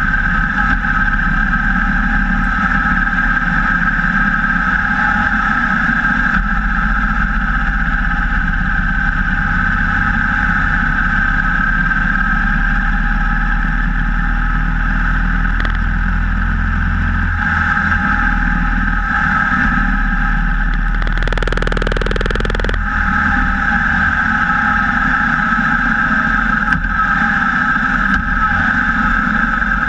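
Cruiser motorcycle riding at road speed, heard from a camera mounted low beside the front wheel: a steady engine drone mixed with wind and road noise. About two-thirds of the way through, a short burst of rushing noise lasts a second or two.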